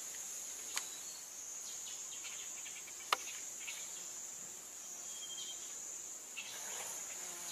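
A steady high-pitched insect chorus, with two short sharp clicks, one just under a second in and a louder one about three seconds in.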